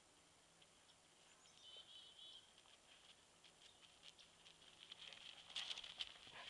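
Faint patter and scuffling of dogs' paws as two Old English sheepdogs chase each other, the footfalls coming thicker and louder in the last second or so. A faint high warbling chirp sounds briefly about two seconds in.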